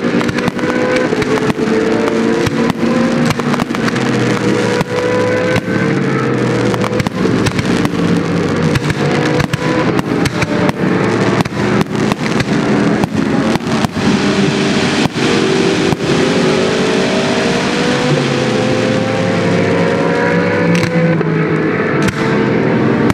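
GT race car engines screaming at high revs, several at once, their pitch climbing slowly as they accelerate. Firework bangs and crackles keep going over them throughout.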